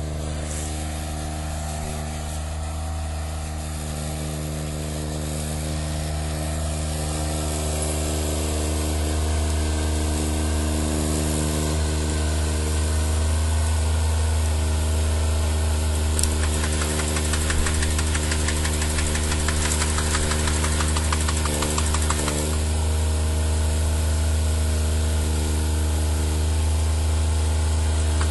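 Engine of an Ebeaver compact forestry harvester running steadily, gradually getting louder over the first half. A fast rattle joins in from about halfway through.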